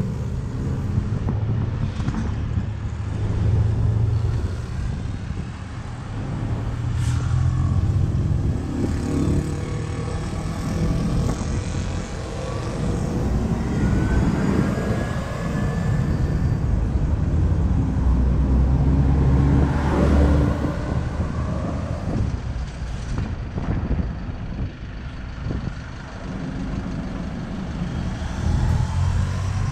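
City buses' diesel engines running at a bus stop: one bus pulls away while others draw up, over steady street traffic. A rising whine comes about halfway through, and there are a couple of short hisses.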